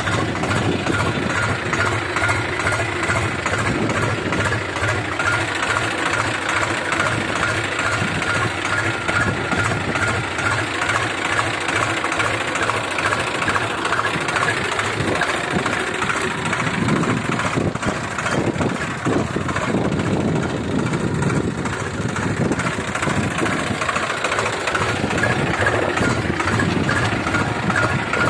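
Farm tractor's diesel engine running steadily as the tractor drives across a field, with an even rapid chugging pulse.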